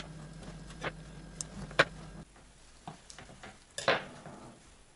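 Light clicks and taps of a knife and fingers on a wooden cutting board as garlic slivers are picked up for studding a raw pork knuckle, with a louder scrape about four seconds in.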